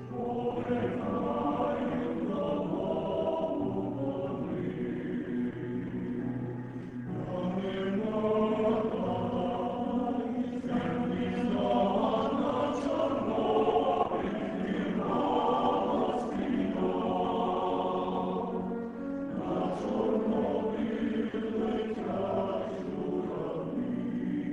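Male choir singing in sustained chords, the held notes shifting every second or two.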